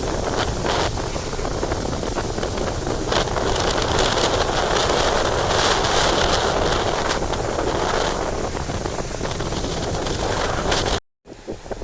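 Typhoon wind buffeting the microphone in strong, steady gusts. About eleven seconds in the sound cuts out briefly, then comes back quieter, with scattered crackles.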